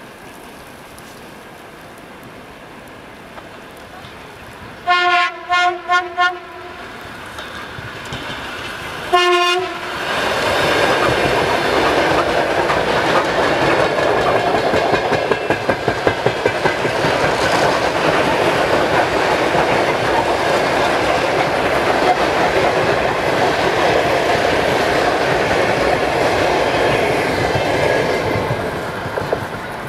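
ЭД4М electric multiple unit sounds its horn in about four short blasts, then once more a few seconds later. It then passes close by at speed, its wheels clattering over the rail joints, and the noise fades near the end.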